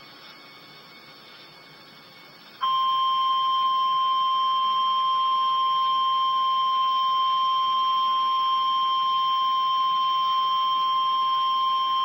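Emergency Alert System attention signal for a tornado warning: NOAA Weather Radio's single steady 1050 Hz warning alarm tone. It comes in sharply about two and a half seconds in, after a pause of faint hiss, and holds at one pitch and one level. The tone announces that a spoken warning message follows.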